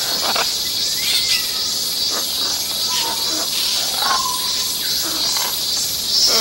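Steady high drone of insects with scattered short chirps and whistles, two clearer whistles about three and four seconds in.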